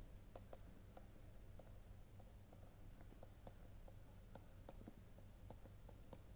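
Faint, irregular taps and clicks of a stylus on a pen tablet while handwriting, over a low steady hum.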